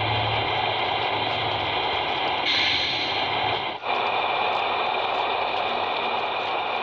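Scale RC Hino dump truck's drive motor and gearbox running with a steady whine as it drives over gravel. The sound dips briefly and changes about four seconds in.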